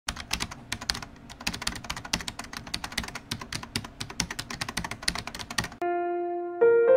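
Rapid, irregular keystrokes on a computer keyboard, a typing sound effect, for about six seconds, stopping abruptly. Sustained piano notes then come in near the end.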